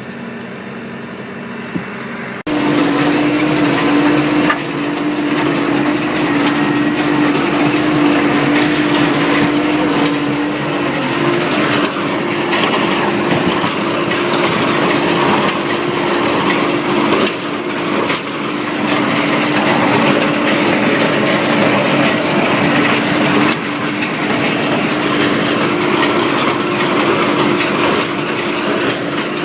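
New Holland square baler running behind a tractor, baling hay: steady mechanical noise over a constant engine drone, suddenly louder about two seconds in.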